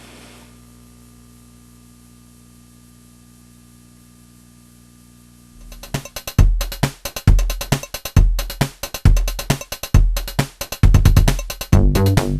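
A faint steady low hum, then, about six seconds in, electronic music starts with a heavy kick-drum beat.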